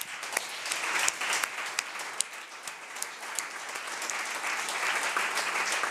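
A room full of people applauding, the clapping starting abruptly and building slightly as it goes on.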